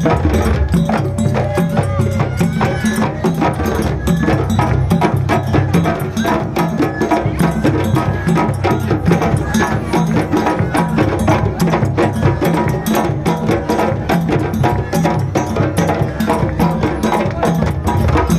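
Japanese festival percussion ensemble playing a fast, unbroken rhythm of dense strikes, with gliding pitched sounds over it at times.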